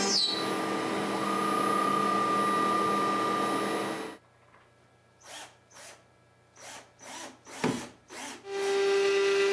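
ShopBot Desktop CNC router's spindle running as it cuts wood, then cutting off sharply a little under halfway through. A few short knocks and scrapes follow as the workpiece is handled, the sharpest knock coming about three-quarters of the way in. Bowed-string music starts near the end.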